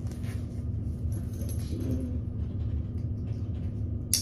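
Metal ID tags on a puppy's collar jingling as the collar and harness are handled, with one sharp click near the end, over a steady low background rumble.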